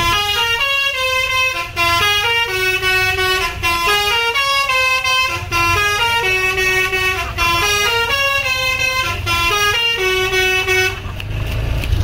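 Bus telolet: a Basuri multi-tone musical air horn on a tour bus playing a stepping melody, the same short phrase repeated about three times and stopping near the end, over the bus engine's low rumble.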